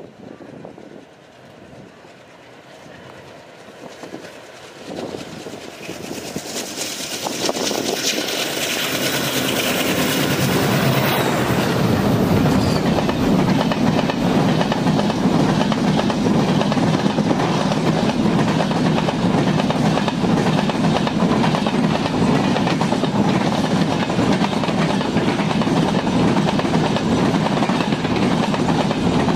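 A WDM-3A Alco diesel locomotive approaches and passes at speed, its noise building over about ten seconds. Then its train of passenger coaches rolls past close by in a steady loud clatter of wheels on rail.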